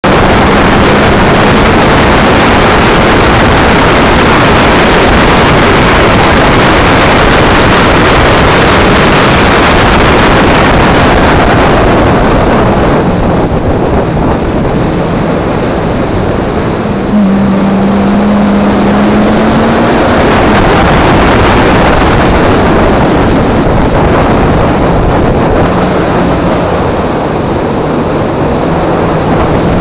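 Peugeot 106 1.6 16v four-cylinder engine at speed on a race track, with heavy wind rush on the microphone. The sound eases for a few seconds around the middle, then the engine picks up again abruptly with a rising note as the car accelerates.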